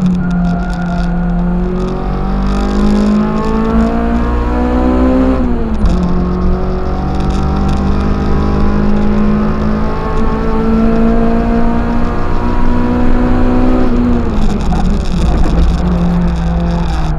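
Toyota 4A-GE four-cylinder twin-cam engine of a KE25 Corolla race car, heard from inside the car and pulling hard. The revs climb, drop sharply about five and a half seconds in as it shifts up, and climb again. Near the end they fall away as the driver lifts off, then hold steady.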